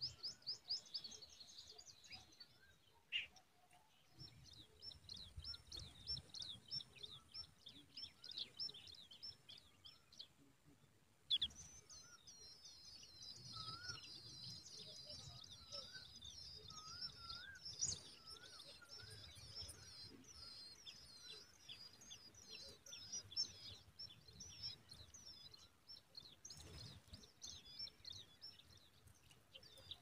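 Tailorbird nestlings begging: long runs of rapid, high, thin chirps with short pauses, busiest while the young gape at a parent at the nest.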